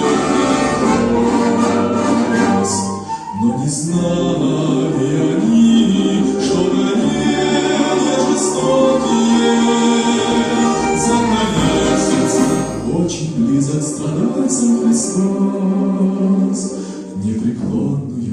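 A choir singing a slow Christian hymn in long held notes, accompanied by a church folk orchestra, with short breaths between phrases about three seconds in and near the end.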